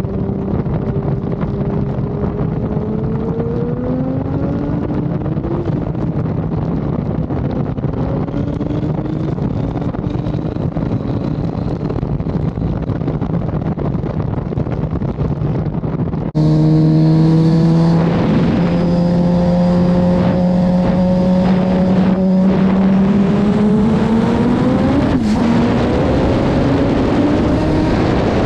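A motorcycle engine runs at speed under loud wind rush, its note rising slowly a few seconds in. A little past halfway the sound cuts to a louder onboard recording of the turbocharged Suzuki Hayabusa 1340cc inline-four pulling hard at over 150 mph. Its note climbs steadily, with a brief hitch in pitch near the end.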